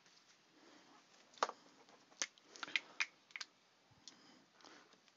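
Sealed cardboard trading-card boxes being handled and set down on a table: a string of sharp, irregular clicks and taps, the loudest about a second and a half in.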